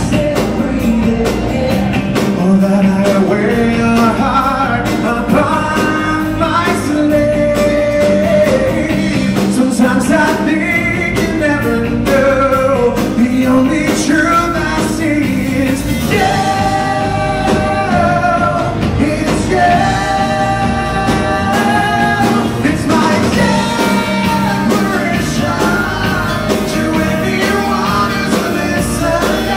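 Live rock band playing: a male lead voice over acoustic guitar, electric bass, keyboard and drum kit.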